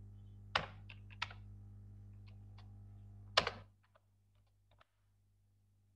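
Computer keyboard typing: a handful of separate keystrokes, one louder than the rest about three and a half seconds in, then a few faint clicks. A low steady hum under them cuts off just before four seconds.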